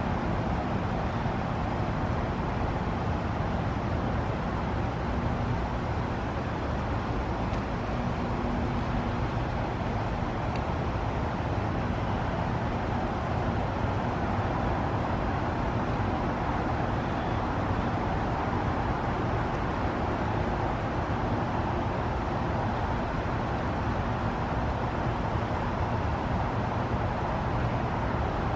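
2023 RunTru heat pump outdoor unit running steadily through a defrost cycle: a constant rushing noise over a low compressor hum.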